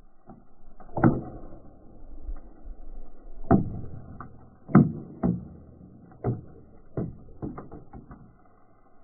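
Large plastic water bottle sealed with liquid nitrogen inside, knocking on concrete and cracking and popping in about ten sharp, irregular knocks as the boiling nitrogen pressurises it. The loudest knocks come about a second in and around four to five seconds in.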